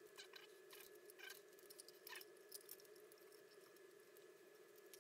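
Faint rustling and short scratchy crackles of small pieces of adhesive-backed conductive cloth shielding being handled by fingers, clustered in the first half, over a steady faint hum.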